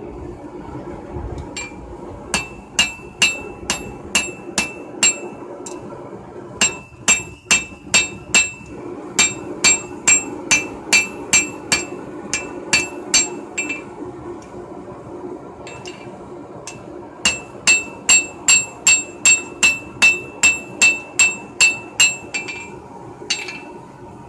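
Blacksmith's hand hammer striking red-hot steel on an anvil, ringing brightly with each blow. It comes in runs of several blows at about two to three a second, with short pauses between runs, over a steady low drone.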